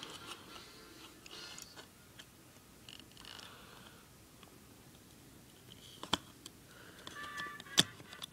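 Small clicks of plastic and metal as the wire tabs are unlatched from the motor terminals of a Tokyo Marui MP5A4 airsoft gun, with two sharper, louder clicks about six seconds in and near the end.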